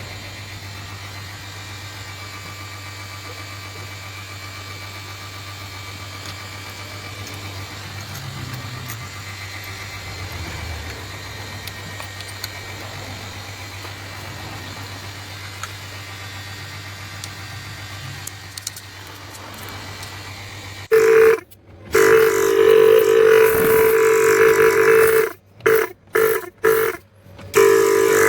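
Household refrigerator compressor motor giving a steady low hum. About 21 seconds in, a much louder pitched buzz starts and then breaks off and restarts several times near the end.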